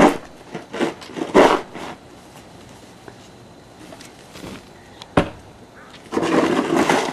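Snow shovel scraping and pushing snow across a wooden deck: several quick scraping strokes, a sharp knock about five seconds in, and a longer scrape near the end.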